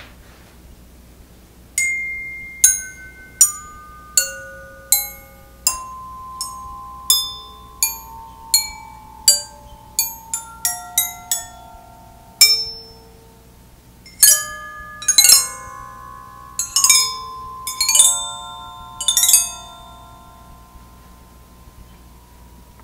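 The Chewbewlar, a homemade tubular metallophone of metal tubes on a steel frame, is struck note by note with a thin beater. Each tube rings a clear pitch with an airy tone. The notes come singly about once a second, then in quicker clusters and overlapping runs near the end, and the last tones ring on.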